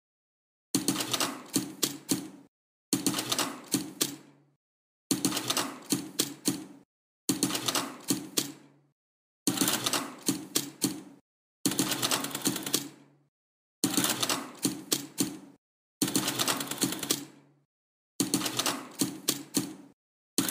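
Sewing machine stitching in short runs of about a second and a half, a fast clatter of needle strokes over the motor's hum, repeating at an even, looped beat about every two seconds.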